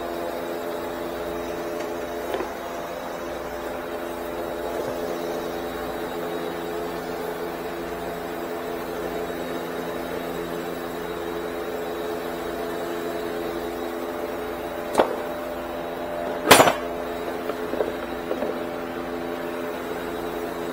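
A steady machine hum with several pitches layered together runs throughout. Over it come a few sharp knocks, one faint one early and a cluster in the last third, the loudest about two-thirds of the way in.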